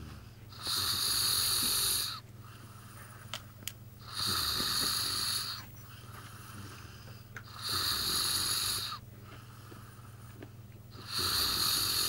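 A sleeping man snoring: four wheezy, hissing breaths, evenly spaced about three and a half seconds apart, with quieter breathing between them.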